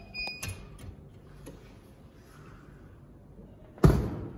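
Laboratory incubator door being shut: a few light knocks, then one loud thud about four seconds in.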